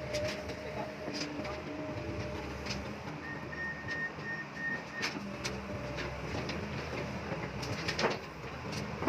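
Backhoe's engine running steadily, with scattered clicks and a couple of louder knocks near the end.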